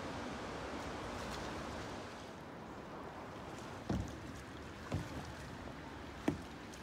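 Kayak on moving creek water: a steady rush of water that eases after about two seconds, then three low knocks in the second half, typical of a paddle or the water knocking against the kayak's hull.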